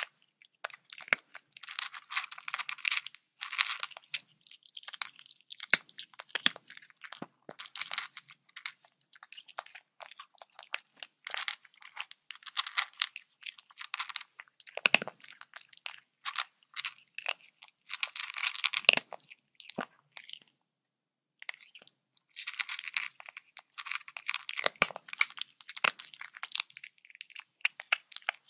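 Leopard chewing and biting raw meat, close up: irregular clusters of crunches and wet bites, with a pause of about two seconds two-thirds of the way through.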